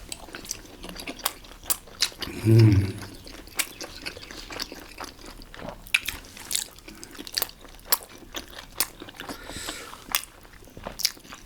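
Close-miked chewing of momo dumplings: irregular wet clicks and smacks of mouth and teeth, several a second.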